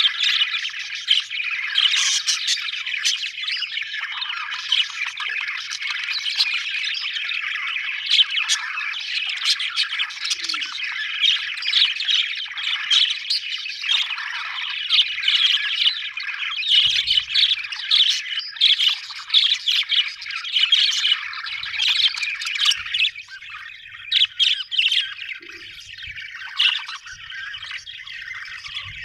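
Budgerigars chattering: a dense stream of overlapping warbles, chirps and squawks, thinning out and getting quieter about three-quarters of the way through.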